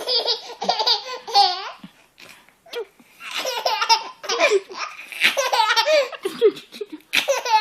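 A nine-month-old baby laughing in repeated bursts, with short pauses between.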